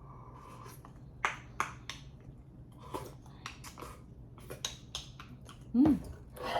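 Eating sounds while finishing a bowl of ramen: a scatter of small, sharp clicks and taps from mouth and utensils, with a short hummed "mm" near the end.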